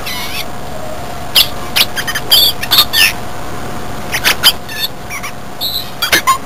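California scrub jay's song: a run of short, squeaky chirps and clicks in several quick bursts with short pauses between.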